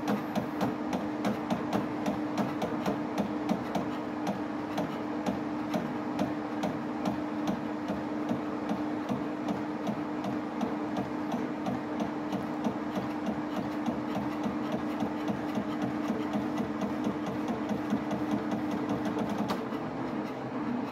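HP 7550A pen plotter drawing in demo mode: its pen-drive motors run with a steady hum over a rapid, even stream of ticks as the pen moves over the paper. The hum shifts near the end.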